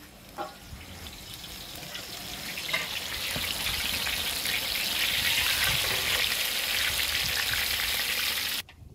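Soya manchurian balls deep-frying in hot oil in a large iron kadhai, a dense sizzle that builds over the first few seconds and then holds steady, with a couple of clicks from the slotted spoon early on. It cuts off suddenly near the end.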